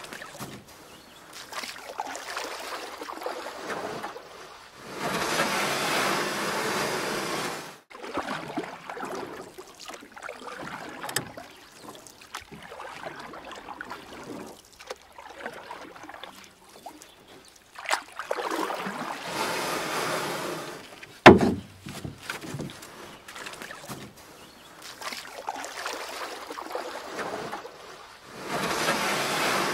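Black-powder cannon fired with a blank charge: one sharp, loud bang about two-thirds of the way through. Stretches of steady rushing noise and outdoor hubbub come and go around it.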